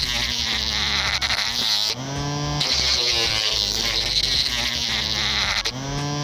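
Small DC-motor mini grinder running with a buzzing whine and a hissy grinding noise. Its pitch rises twice, about two seconds in and again near the end.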